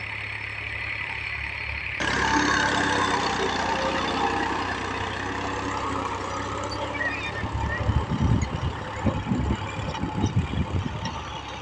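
Powertrac 435 tractor's three-cylinder diesel engine running steadily under load as it pulls a cultivator through ploughed soil. About two seconds in the sound jumps closer and louder. From about halfway, wind buffets the microphone in low, gusty rumbles.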